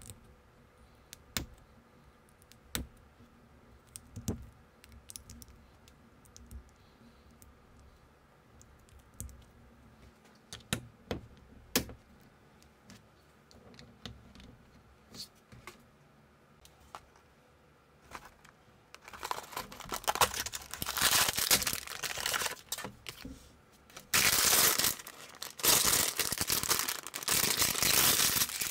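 Small plastic building bricks clicking together as they are pressed on and fitted, in scattered single clicks. About two-thirds of the way through, a clear plastic parts bag starts crinkling loudly as it is handled and torn open.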